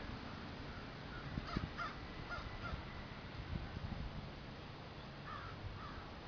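A mob of crows cawing, several calls a second or two in and a few more near the end, over a steady low rumble.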